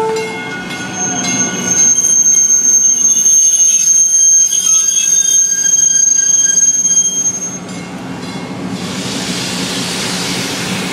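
South Shore Line electric train cars rolling past at close range, wheels squealing on the rails in a thin, high, steady whine that stops about seven and a half seconds in. After that the passing cars give a steady rushing noise over a low rumble. The last of the horn cuts off right at the start.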